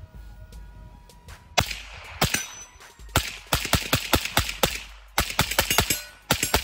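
Daniel Defense PDW AR pistol in 300 Blackout firing: two single shots, then a fast string of semi-automatic shots at about five a second. The string breaks off briefly and then resumes, a rapid mag dump.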